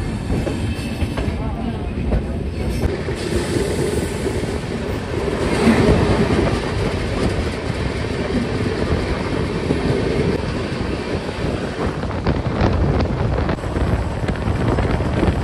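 Indian Railways Sachkhand Express passenger train running along the track, heard from an open coach doorway: a steady, loud rumble and rush of wheels on rail, with a few sharp clacks near the end.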